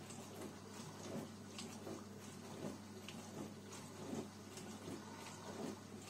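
Cookology CMDW2 tabletop dishwasher in its wash cycle: a steady low pump hum under water spraying and splashing against the dishes in uneven surges.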